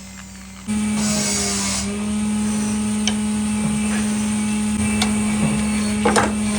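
A workshop machine's electric motor switches on less than a second in and runs at a steady, even hum. A few faint ticks sound over it.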